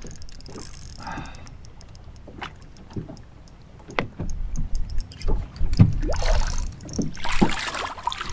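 Water splashing against a boat hull, with scattered knocks. Near the end a hooked smallmouth bass thrashes and splashes at the surface beside the boat.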